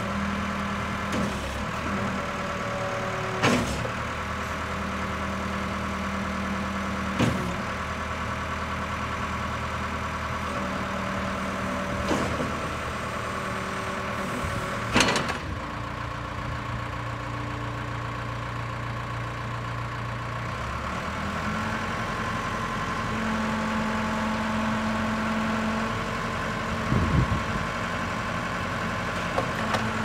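Case 580L backhoe loader's four-cylinder diesel engine running steadily, its note changing a few times as the backhoe hydraulics are worked. Several sharp metal clunks come from the moving boom and stabilizers.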